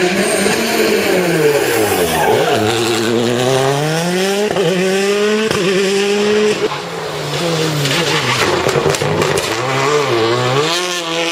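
Rally car engine under hard driving. Its pitch falls as it slows, then climbs through the gears, dropping sharply at each of three quick upshifts, and later dips and rises again as the car works through the next bends, with some tyre squeal.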